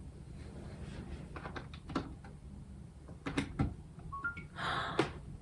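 Clicks and knocks of a cable being plugged into a USB port. A little after four seconds come two short beeps, the second higher than the first, as a Medela breast pump powers on, then a short hiss.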